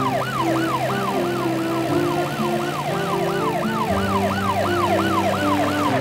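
Cartoon ambulance siren wailing in quick, repeated rise-and-fall sweeps, about three a second, over background music.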